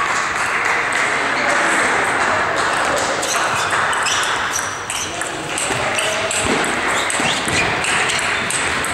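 Table tennis rally: the celluloid ball clicking sharply off the bats and the table in quick, irregular succession, echoing in a large hall over the steady hubbub of other tables in play.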